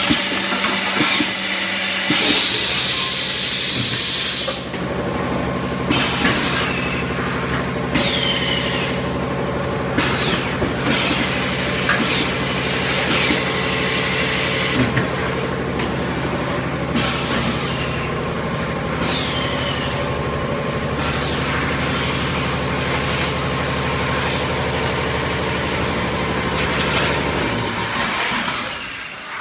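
Roof tile pressing machine running with a steady hum, with repeated short hisses and brief falling squeals every two to three seconds and a longer hiss about two seconds in. The hum stops near the end.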